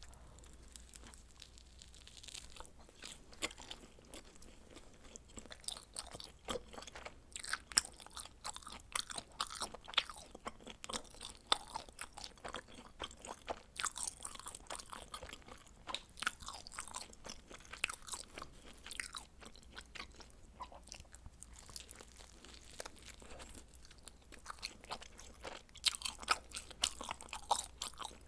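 Close-miked chewing of pizza: a run of crisp crunches and wet mouth clicks from the crust and toppings, easing off for a few seconds a little after the middle, then picking up again near the end.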